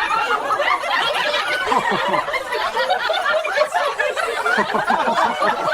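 Several people laughing together, their laughs overlapping without a break.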